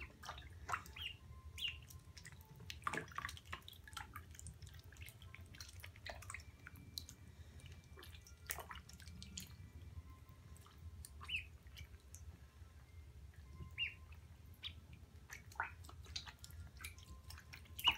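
Young domestic ducklings (Pekin, Khaki Campbell and Duclair) peeping now and then in short, high chirps. Small drips and splashes come from their paddling in shallow water.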